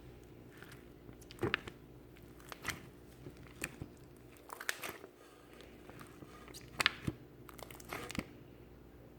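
Slime being squished and worked by hand, giving irregular sharp crackling pops and clicks, loudest about one and a half seconds in and again near seven seconds.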